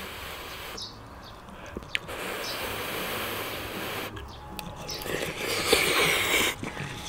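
A person eating ramen soup with rice and Spam, chewing and slurping in uneven bursts, loudest about five to six and a half seconds in.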